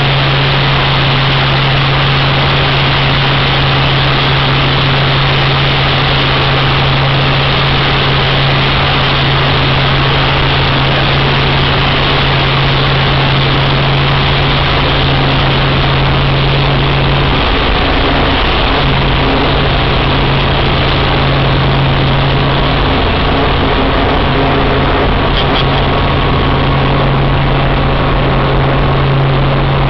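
Light helicopter's engine and rotor running in flight, heard from inside the cockpit: a steady, loud low drone with a wide hiss over it. The drone wavers briefly about halfway through, then settles back.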